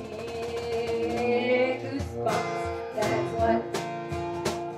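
Live acoustic band music: a strummed acoustic guitar with sharp bongo hits and a voice singing a held melody.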